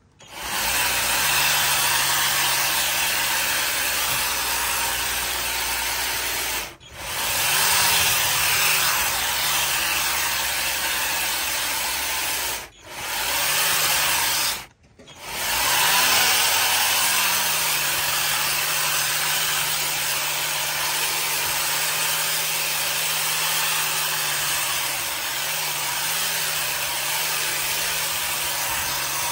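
EGO Power+ battery power head driving a Terre Products powered rotary scissors attachment: a steady motor whir as the toothed blade disc cuts grass along the border. It drops out briefly three times and comes back up to speed each time.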